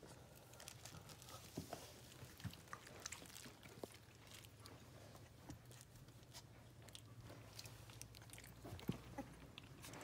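Faint sounds of three-and-a-half-week-old Coton de Tulear puppies mouthing and chewing plush toys and each other: soft, scattered little clicks and rustles over a low room hum.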